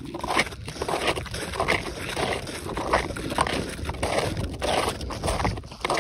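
Snowshoe footsteps crunching in snow in a steady walking rhythm, under wind buffeting the microphone.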